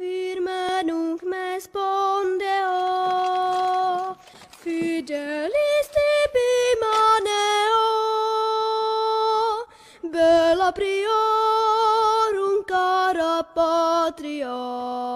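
A solo voice singing the opening lines of a Latin anthem, one note at a time in long held notes with vibrato, starting out of silence, with short breaks between phrases.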